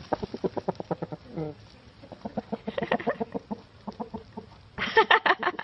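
Chickens clucking in long runs of quick, short notes, with one brief falling call about a second and a half in and a louder, faster run of clucks near the end.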